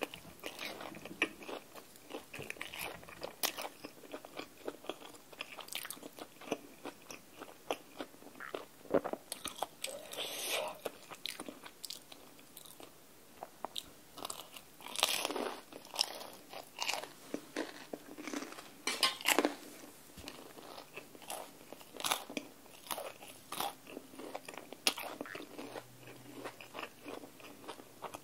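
A person eating close to the microphone: chewing and biting on rice cakes and fish cake in a thick spicy cream sauce, with wet mouth clicks in irregular bursts and a few louder ones near the middle.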